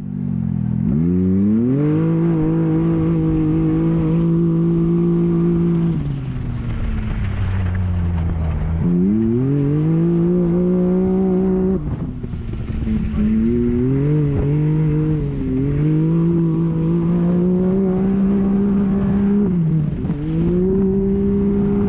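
Off-road race vehicle's engine under hard throttle during a race lap. The revs climb in the first two seconds and hold high, fall away about six seconds in, climb again near nine seconds, then waver with brief lifts off the throttle, over a steady hiss of wind and dirt.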